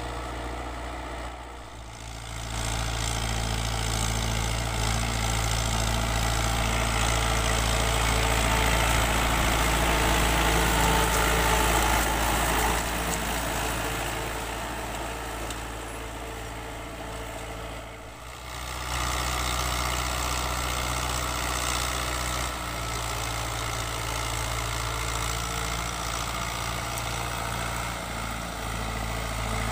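New Holland Dabung 85 tractor's diesel engine running steadily while it pulls an 18-disc harrow through ploughed soil, loudest about ten seconds in when the tractor is closest. The sound drops briefly twice, near two seconds and near eighteen seconds in.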